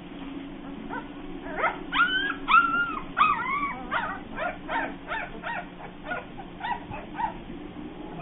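Bernese Mountain Dog puppies yipping and whining: a few longer, arching whines about two seconds in, then a run of short yips about twice a second that thin out toward the end.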